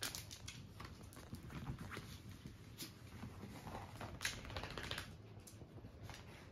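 Small dog scrabbling and bouncing on sofa cushions and blankets: faint rustling of fabric and the patter of paws, with scattered soft clicks and scuffs.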